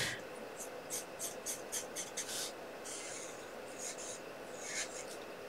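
Faint scratchy strokes of a colouring brush on card stock as a stamped image is coloured in: quick strokes about four a second at first, then a few longer, slower ones.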